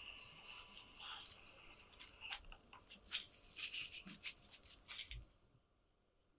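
Small metal-bodied trimming plane (Kakuri replaceable-blade hobby plane), freshly tuned, finishing a stroke on a wood strip: a thin, steady cutting hiss as it takes a fine shaving, fading within the first second. This is followed by a quick run of sharp clicks and taps as the plane is handled and the shaving pulled off; the sound stops abruptly about five seconds in.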